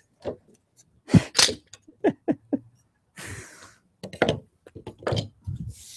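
Handling noise as wooden boards are moved about on a table: a series of light knocks and thumps, the strongest just over a second in, with a short rustle about three seconds in.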